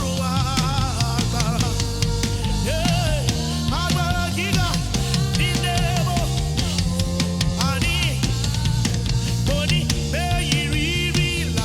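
Live church praise band playing: drum kit with a steady beat and bass notes underneath, with a melody line bending and wavering in pitch over the top.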